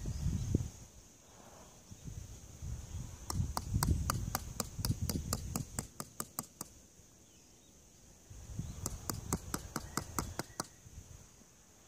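Two runs of rapid, evenly spaced clicking, about five clicks a second, over a low rumble of wind on the microphone.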